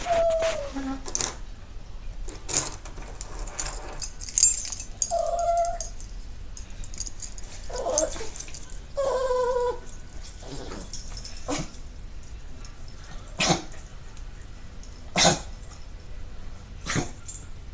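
A dog whining and yipping in short pitched calls that drop in pitch, then giving short sharp bursts about every two seconds in the second half.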